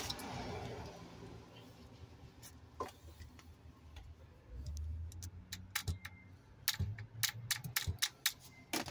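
Hands working among the parts and wiring of a van's engine bay: a rustle at the start, a dull thump about five seconds in, then a quick irregular run of sharp clicks and taps over the last few seconds.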